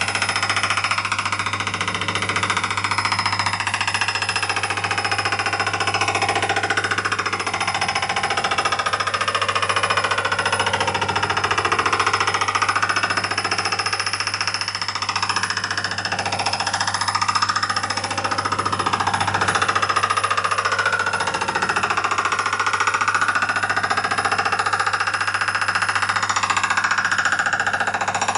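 Myford lathe set up for milling, cutting across the end of an aluminium extrusion: the motor runs with a steady low hum under a continuous, shifting cutting noise.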